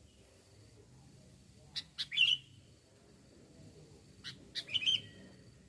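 Sooty-headed bulbul (kutilang) calling: two short bouts about two and a half seconds apart, each a couple of sharp notes running into a brief chattering phrase.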